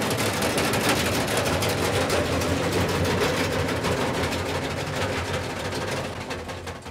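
Front-loading washing machine on its spin cycle: a steady motor hum under fast, continuous rattling and banging as the unsecured machine jumps about on the floor. The clatter fades away near the end.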